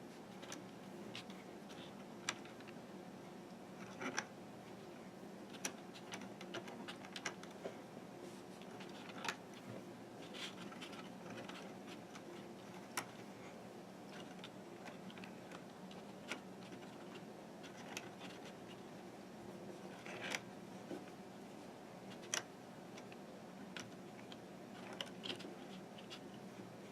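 Faint, irregular clicks and taps of rubber bands being stretched onto and pushed down the plastic pegs of a Fun Loom, over a low steady hum.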